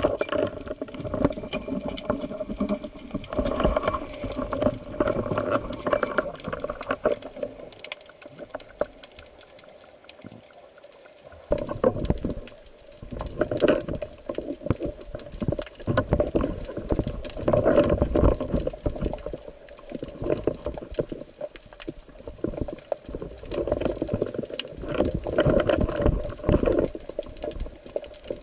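Water rushing and gurgling around an underwater camera in irregular surges every second or two, with a faint steady high whine throughout.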